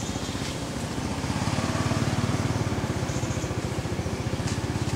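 A motor engine running steadily with a fast, even pulse, getting louder about a second and a half in, with a single sharp click near the end.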